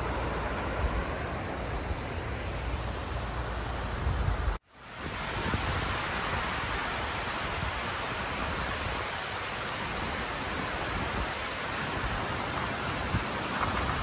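Fast mountain river rushing over rocks, a steady rush of water. About four and a half seconds in it cuts off abruptly, and a similar steady rushing noise carries on after the cut.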